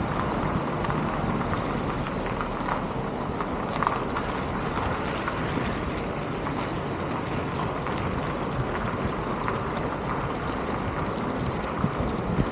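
Steady city-street noise of traffic, with wind on the microphone.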